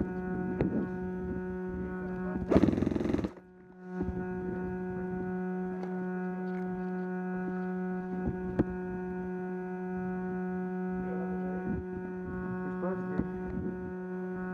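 A steady electrical hum with many overtones. About two and a half seconds in, a loud rushing burst lasts under a second and the sound cuts out briefly, and a few faint clicks come and go.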